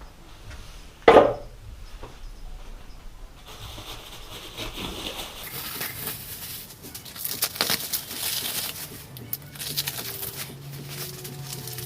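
Masking tape and paper being peeled off a freshly painted engine and crumpled, a crackly run of rustling and tearing, after a sharp knock about a second in.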